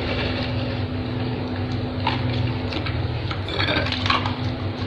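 Light clinks and taps of plates and spoons being handled while eating, a few about two seconds in and a small cluster near the end, over a steady low hum.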